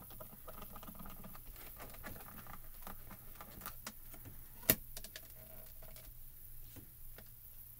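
Light clicks and taps of clear stamps being set down on card stock and handled inside a MISTI stamp positioning tool, with one sharp click about five seconds in.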